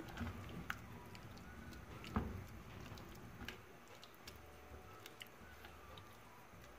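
Spatula stirring vegetables through a cornstarch-thickened sauce in a granite-coated pot: faint wet squelching with scattered light scrapes and taps on the pot, one louder tap about two seconds in.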